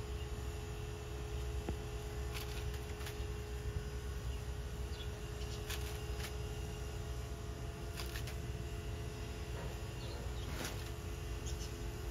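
An emu pecking at and tearing a head of romaine lettuce held out by hand: several crisp snaps and crunches, spread out, over a steady low hum.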